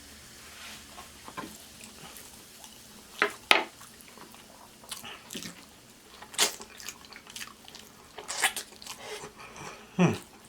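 Close-up wet mouth sounds of a person eating oxtails: irregular smacking, sucking and chewing, with a few louder sharp smacks.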